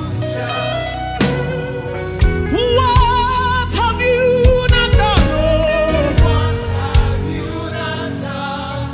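Live gospel praise and worship music: a female lead singer and backing vocalists hold long, wavering sung notes over a band, with regular drum hits.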